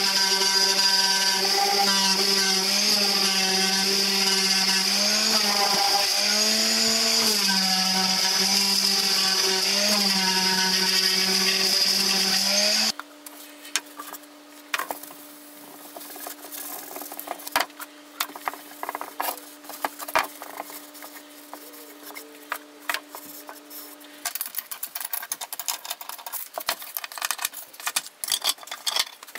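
Electric random orbit sander running against a maple-and-cherry wood box, a steady motor whine whose pitch dips briefly now and then. It cuts off abruptly about 13 seconds in, leaving a faint steady hum and scattered light clicks, which grow busier near the end as thin wooden divider pieces are fitted together.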